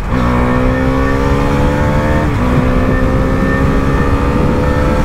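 Husqvarna Vitpilen 250's single-cylinder engine through an aftermarket underbelly exhaust, accelerating hard. The revs climb, drop with an upshift a little over two seconds in, then climb again. The note is close to stock, with only slightly more bass.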